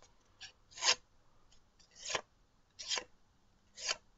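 Knife blade being drawn through a sheet of paper in four short strokes that catch and tear the paper instead of slicing it cleanly: the edge is too dull to bite.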